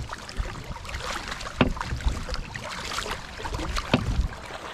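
Kayak afloat on a river: steady water noise with two sharp knocks against the hull, about two seconds apart.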